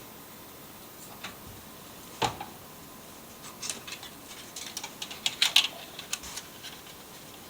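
Scattered, irregular light clicks and taps, with a cluster of sharper clicks about five to five and a half seconds in.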